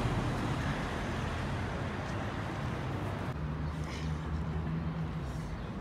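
City street ambience: steady traffic noise with a low engine hum. The background changes abruptly about three seconds in, and the hum becomes steadier.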